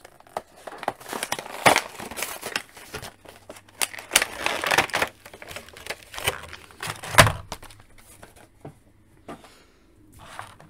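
Plastic blister packaging and its cardboard backing card crinkling, crackling and tearing as an action figure is pried out of its bubble-on-card package, in irregular strokes that die down about eight seconds in.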